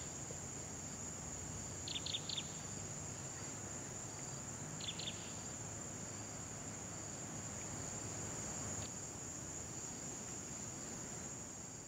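Evening insect chorus, a steady high shrill drone, with a few quick runs of three or four chirps about two and five seconds in. It starts to fade near the end.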